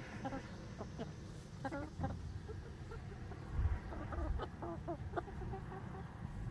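A flock of young hens clucking as they forage in grass: a scatter of short calls through the first five seconds or so. A brief low rumble comes about three and a half seconds in.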